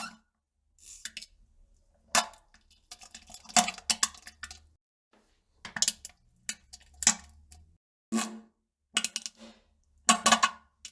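A series of short, sputtering fart sounds, about ten separate bursts with gaps between, some coming in quick clusters of two or three.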